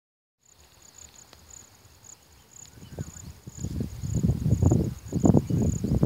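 Insects trilling in a steady, high-pitched, finely pulsing chorus. From about three seconds in, louder low, irregular rumbles from wind buffeting the microphone come over it.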